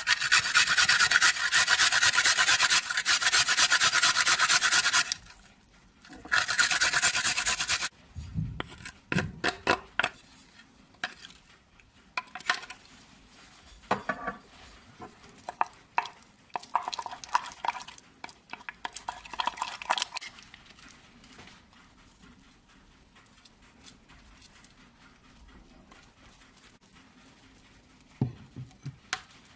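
Something grated on a metal box grater, with fast rasping strokes for about five seconds and again for a second and a half shortly after. Then a wooden spoon stirs and scrapes in a ceramic bowl, in scattered scrapes and clicks.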